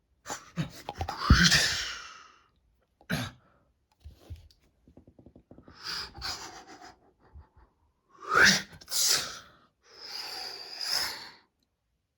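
Gasps and sharp, breathy vocal bursts with no words: a run of separate loud breaths or exclamations spaced a few seconds apart.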